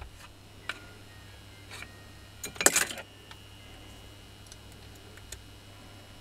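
Light clicks and a short metallic clatter of small parts and a tool being handled in an opened power-tool housing, loudest about two and a half seconds in. A low steady hum sits underneath.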